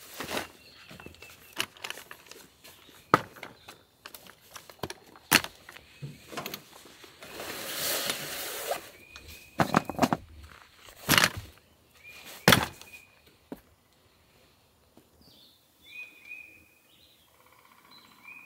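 Folding camp chair and table frames being put together: sharp clicks and knocks of metal poles snapping into their joints, with a rustle of the fabric seat being pulled on about 8 seconds in. It grows quieter near the end.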